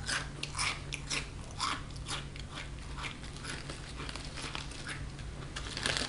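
Crunchy SunChips multigrain chips being chewed close to the microphone: irregular crisp crunches a few times a second. Near the end a hand rustles in the chip bag.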